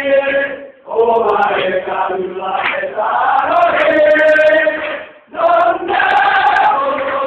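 Many voices chanting together in long held phrases, breaking off briefly twice.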